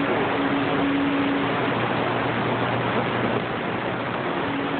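Steady hiss of CB radio static from the receiver's speaker between transmissions, with a faint steady low tone running through it. It is the band noise of unsettled skip conditions, which the operator blames on Mother Nature not cooperating.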